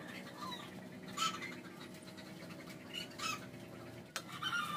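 Chickens clucking a few short times in the background, over a steady low hum.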